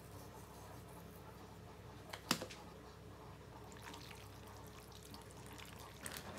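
Quiet household handling sounds over faint room noise: one sharp click a little over two seconds in, then a few lighter clicks.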